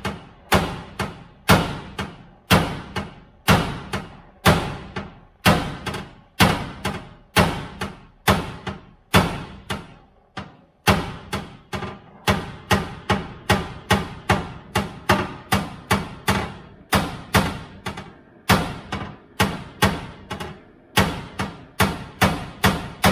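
Hammer blows on the torch-heated steel of an OBS Chevy pickup's chassis rail, about two strikes a second, each with a brief metallic ring, as the hot steel is worked back into shape.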